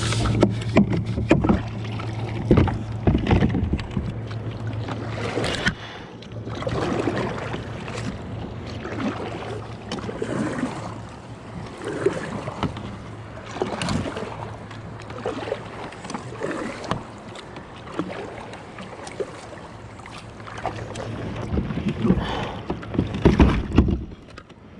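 Water swishing and lapping against a fishing kayak on the move, in uneven strokes every second or two. Under it a faint steady low hum runs for most of the time and drops out about two-thirds of the way through.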